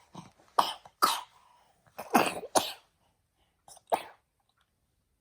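A sick person coughing in a fit of about five harsh coughs: two close together about half a second in, two more about two seconds in, and a last one near the end.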